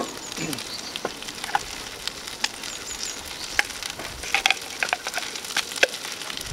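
Chopped nettles sizzling in a frying pan over a wood fire. Scattered sharp clicks and knocks run through it, the loudest a knock right at the start.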